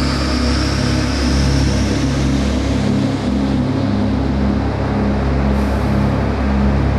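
Steady noise of a fighter jet's engine heard inside the cockpit, with a high whine fading early on, under background music with slowly pulsing low notes.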